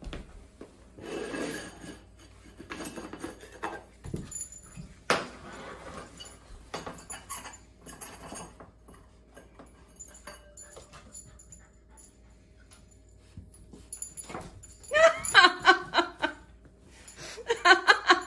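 A Labrador puppy scuffling and rustling about on a tile floor, with a sharp click about five seconds in, then two loud bursts of a person laughing near the end.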